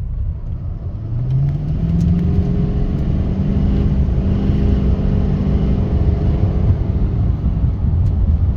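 6.6-litre L5P Duramax turbo-diesel in a 2020 GMC Sierra 3500HD under hard acceleration, breathing through a Banks Ram-Air cold air intake: the engine note rises about a second in, then holds steady and loud, with the intake audibly pulling air in.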